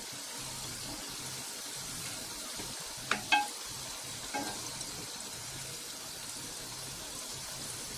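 Rice-flour murukku deep-frying in hot oil in a kadai, a steady sizzle. They are being turned with a slotted spoon, which clinks lightly against the pan a few times, just after three seconds in and again near four and a half.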